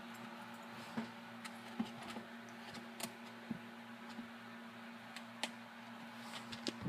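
A few light clicks and taps scattered over a faint steady hum, about one every second or so.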